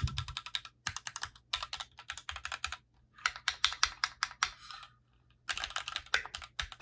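Typing on a Keychron Q5 aluminium-bodied mechanical keyboard with Gateron Pro Red linear switches. Quick runs of keystrokes break off briefly just before one second in, around three seconds and around five seconds.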